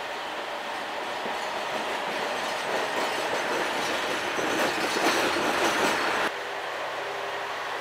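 Diesel shunting locomotive passing close by, its engine and wheels growing louder as it nears, with clicking over the rail joints. The sound cuts off suddenly about six seconds in.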